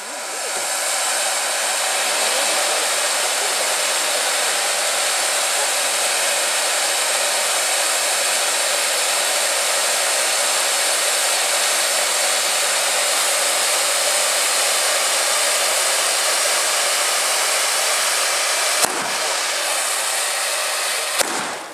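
Hand-held tube firework (tezutsu hanabi) spraying a fountain of sparks with a loud, steady rushing hiss. Two sharp cracks come near the end, and the jet then cuts off.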